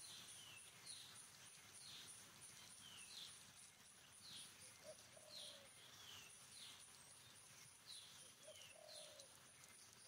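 Faint birdsong: a bird repeats a short high whistled call about once a second over a faint high pulsing about four times a second, with a lower call about halfway through and again near the end.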